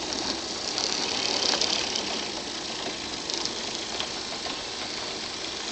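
O scale battery-powered 44-tonner model locomotive running with its freight cars: a steady whir and rattle of the motor, gears and wheels rolling on the track, with a few faint ticks.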